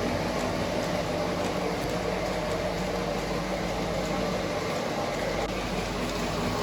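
O gauge model passenger trains running on the layout: a steady hum and rumble of motors and wheels on the track.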